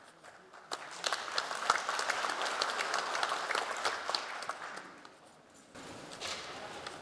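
Audience applauding: the clapping starts about a second in, holds steady for a few seconds and dies away about five seconds in.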